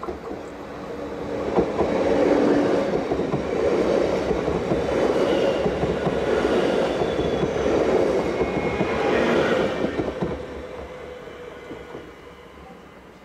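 Siemens Desiro electric multiple unit passing close by: the rumble of wheels on rail builds over the first two seconds, stays loud with a few brief high whines near the middle, then fades from about ten seconds in as the train moves away.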